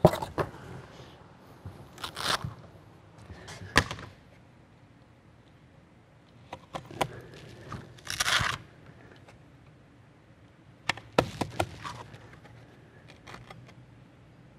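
Sanding discs being handled and fitted onto the pads of a three-pad floor sander: scattered rustling, crinkling and clicks, with a few short rasping tears, the loudest about eight seconds in.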